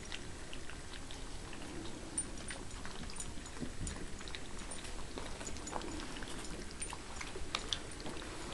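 Several Siberian Husky puppies lapping and chewing food from one shared bowl: a busy, steady patter of small wet clicks and smacks.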